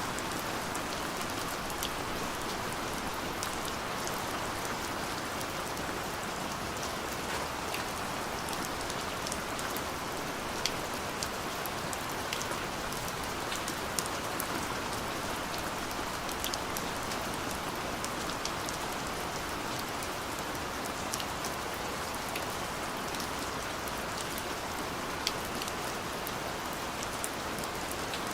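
Steady rain falling, an even hiss with many single drops ticking sharply on top of it.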